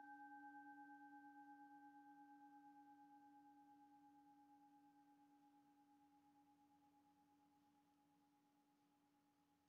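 The fading ring of a struck meditation bell: a low hum with two fainter higher tones, wavering slightly in loudness as it dies away about three seconds in, then near silence.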